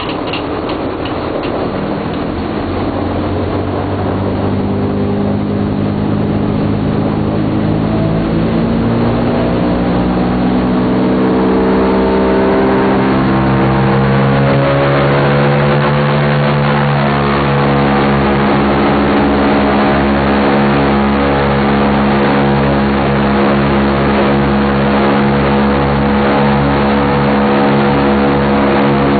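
A B-17 bomber's four Wright R-1820 Cyclone nine-cylinder radial engines being throttled up, heard from inside the nose. Their pitch rises over roughly the first fifteen seconds, then holds steady and loud at high power.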